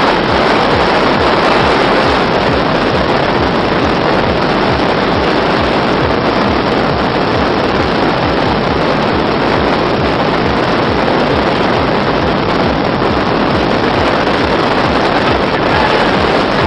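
Wind rushing in through the open door of a high-wing light aircraft in flight, over the steady drone of its engine and propeller. Loud and even throughout, with a regular low pulsing underneath.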